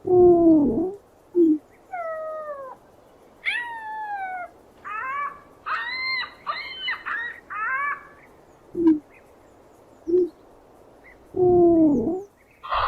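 Ostriches calling: a series of pitched calls that slide downward. A loud low falling call opens the run and another comes near the end. Between them are higher falling calls, a quick cluster of short stacked notes in the middle, and a few brief low notes.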